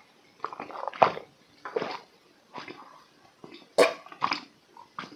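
A person gulping down a tall glass of peach-flavoured water close to the microphone, one big swallow about every second, the loudest about four seconds in.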